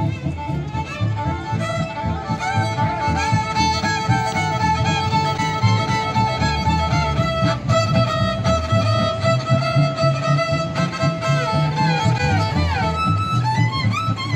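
Violin music over a steady low bass pulse. The violin holds long notes, with a slide down and back up near the end.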